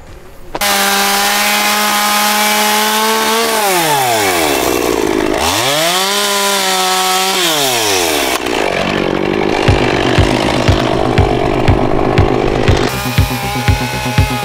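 Two-stroke chainsaw coming in suddenly at high revs, twice dropping toward idle and revving back up, then cutting into wood. A steady beat of background music comes in about two thirds of the way through.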